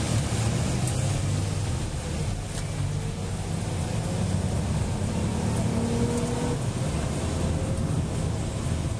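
The 2005 Nissan Maxima's 3.5-litre V6 pulling under hard acceleration, with tyre and road noise, as heard from inside the cabin: a steady low rumble.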